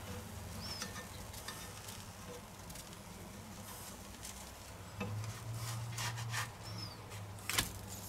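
Faint sizzle of thin spring-roll batter cooking in a nonstick frying pan, over a low steady hum that swells for about a second and a half around five seconds in. A few light taps and scrapes of a plastic spatula in the pan.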